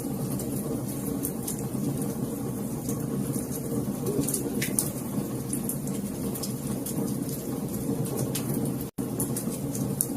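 Wood fire crackling, with scattered sharp pops over a steady low rumble of the flames. The sound cuts out for an instant about nine seconds in.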